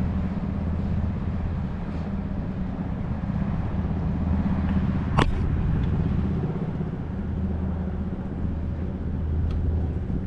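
A steady low mechanical hum, like a running engine or motor, with a single sharp click about five seconds in.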